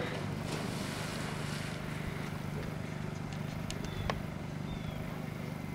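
Splashing as a Newfoundland dog charges into shallow lake water and starts swimming, over a steady low hum.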